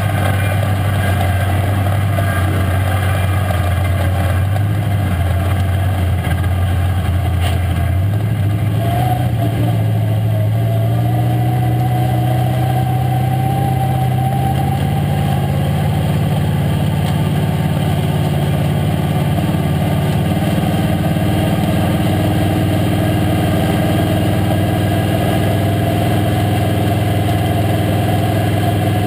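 Late model stock car's V8 engine heard from inside the cockpit, running steadily at low speed. Its pitch rises gently about eight seconds in and eases back down around fifteen seconds.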